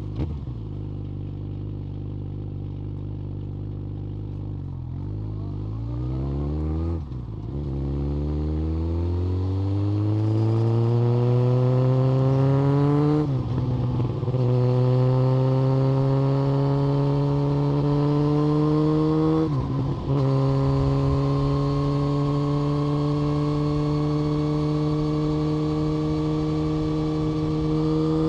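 Yamaha FZ1 Fazer's inline-four engine, through what the video's hashtags say is an SC-Project exhaust, running low and steady, then accelerating hard with the pitch climbing through the gears. It cuts briefly at three upshifts, then pulls on, rising again each time.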